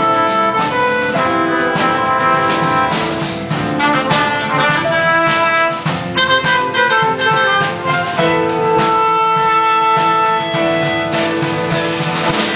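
Instrumental music led by brass, playing a melody in long held notes over a fuller band or orchestral backing.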